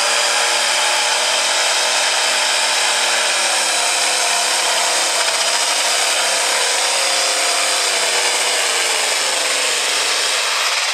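Heavy super stock Case pulling tractor's diesel engine running flat out, loud and continuous, as it drags the weight-transfer sled down the track under full load, its engine note dropping in pitch near the end.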